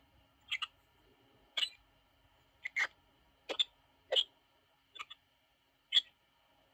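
Measall KC908 spectrum analyzer's speaker playing its P25 Phase 1 digital demodulator output: short blips about once a second, some in quick pairs, over a faint steady tone.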